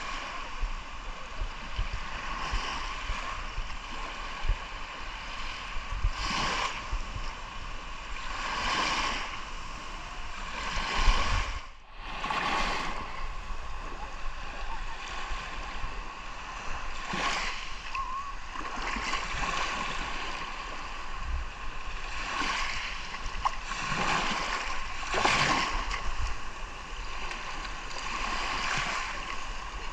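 Sea surf: waves washing in and breaking one after another, swelling every two to three seconds over a steady wash, with a short dip about twelve seconds in.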